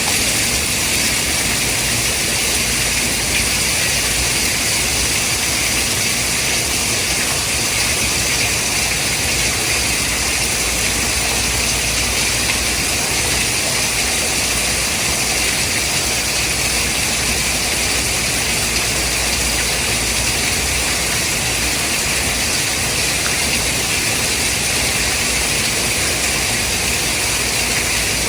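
Steady white noise: an even, unchanging hiss, strongest in the upper range, with a faint low rumble beneath.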